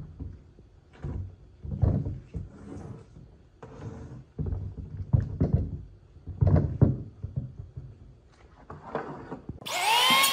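About a dozen heavy thuds and knocks at uneven intervals. Near the end a power tool starts up with a quickly rising whine that settles to a steady pitch.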